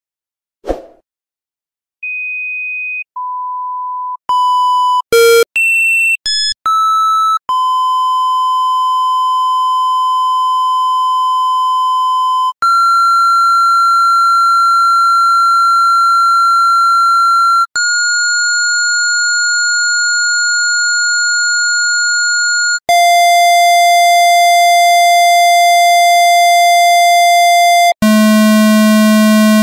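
A sequence of electronic beeps: after a brief click, two single beeps and a quick run of short beeps at changing pitches, then long steady beep tones of about five seconds each, each at a different pitch. The last tone, near the end, is lower and buzzier.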